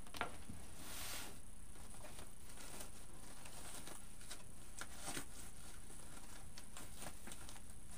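Faint, scattered rustling and light clicks of ribbon and deco mesh being handled and tucked into place on a wreath frame.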